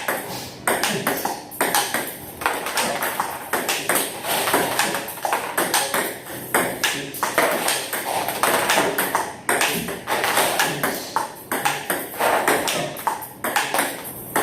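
Table tennis balls clicking off bats and bouncing on the table in quick succession, several sharp ticks a second, as in a fast practice drill.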